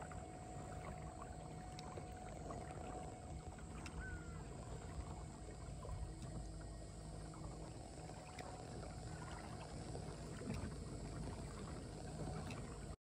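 Kayak moving over a calm river: a low, steady rumble of water and motion, with a couple of faint high chirps about four seconds in and again near ten seconds.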